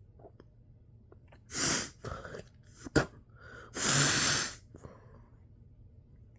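A person sneezing, set off by tickling inside the nose with a Q-tip: gasping in-breaths and a sharp burst, then a forceful spray sneeze about four seconds in, the longest and loudest.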